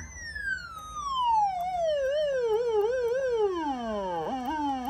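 Electronic police-style motorbike siren sounding its short-wail mode. A single tone slides from high to low over about four seconds, wavering up and down a few times on the way, then yelps back up briefly twice near the end.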